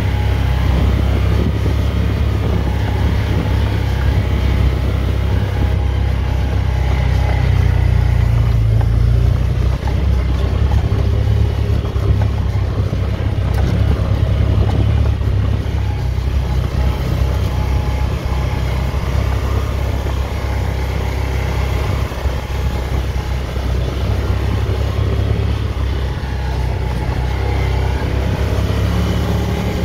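Off-road vehicle engine running steadily while driving over a dirt track: a constant low drone.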